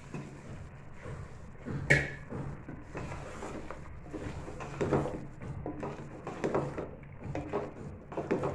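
Wooden spatula stirring chicken pieces through thick masala in a metal pot, with uneven scraping and knocks against the pot over a low steady hum. A sharp knock about two seconds in is the loudest.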